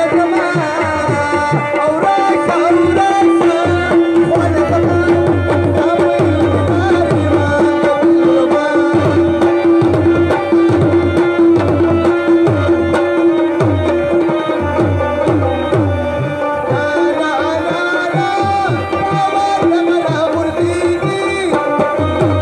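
Live Pashto folk music played through a PA: fast tabla drumming under a bending melody line over one steady held note.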